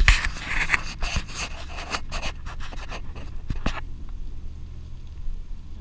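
Wind and road rumble of a moving bicycle on a camera's microphone, with a loud burst of rustling in the first two seconds followed by scattered scratches and crackles.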